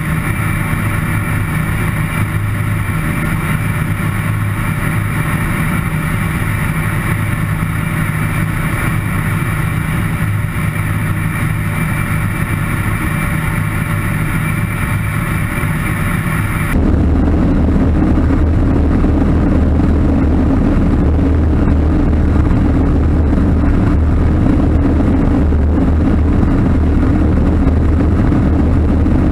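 Avian Adventurer homebuilt light aircraft's engine and propeller droning steadily in flight. About halfway through the sound changes abruptly to a lower, louder drone, as heard from a microphone closer to the engine cowling.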